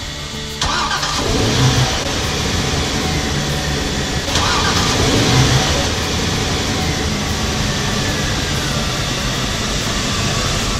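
Twin Ilmor V8 marine engines starting one after the other, the first about half a second in and the second about four seconds in, then both running steadily.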